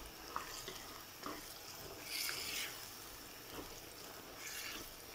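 Pork pieces frying in their own released juices in a clay pot, stirred with a wooden spoon: a faint sizzle with a few light knocks of the spoon. The hissing swells louder twice as the meat is turned, about two seconds in and near the end.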